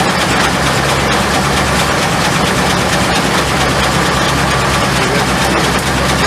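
Steam sawmill machinery running steadily: a continuous low hum under a loud, even rushing noise.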